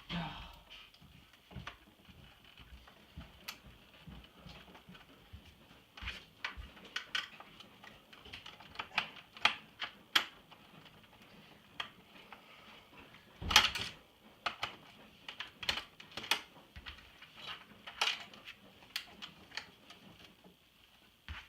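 Irregular small clicks and taps of screws and the iMac G3's plastic housing being handled during disassembly, with a louder clatter about 13 seconds in.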